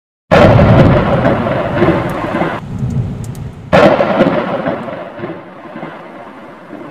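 Thunder sound effect: two loud thunderclaps, one just after the start and another about halfway through, each rolling away into a long rumble that slowly fades.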